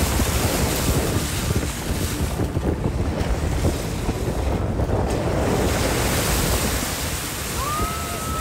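Jeep driving through deep muddy puddles, its front tyre splashing and spraying water, over the steady rumble of the engine and tyres, with wind on the microphone.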